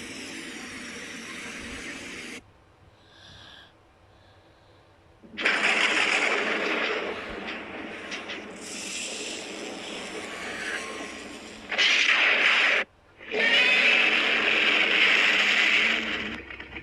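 Custom-made Godzilla sound effects: a steady hiss that cuts off suddenly, a short quiet, then a long harsh monster roar of about six seconds, a short burst, and another roar of several seconds, each starting and stopping abruptly.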